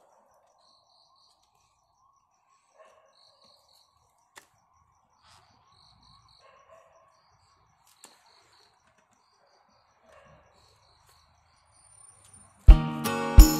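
Faint cricket chirping in short repeated pulses over a faint steady hum, with a couple of small clicks. Loud background music with a strong beat and jingling starts near the end.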